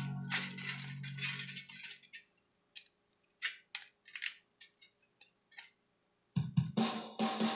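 Guitar background music fades out about two seconds in. Then come a few scattered light clicks and crinkles of thin aluminum can strips being handled, and the music comes back near the end.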